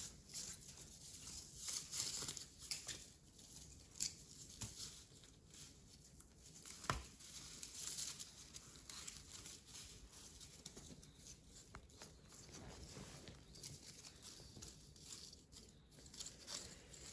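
Faint rustling and scraping of a corrugated cardboard strip being handled, with scattered small taps and clicks and one sharper tick about seven seconds in.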